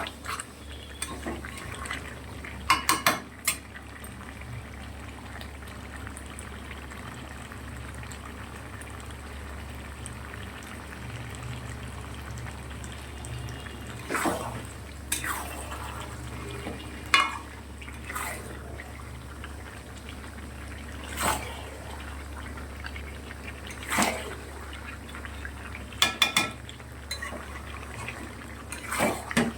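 Chicken and potatoes frying in a kadai over a high gas flame: a steady sizzle under a low hum, with a metal spatula scraping and knocking against the pan every few seconds as the masala is stirred.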